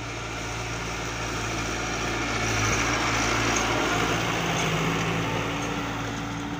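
Massey Ferguson 385 tractor's diesel engine running steadily as the tractor pulls a disc harrow past close by. It grows louder to a peak about three seconds in, then eases slightly.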